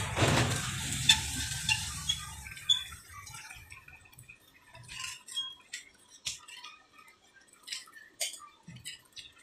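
Concrete hollow block being pressed and nudged into place on wet mortar: a scrape at the start, then scattered light knocks and gritty clicks. A low hum underneath stops about two and a half seconds in.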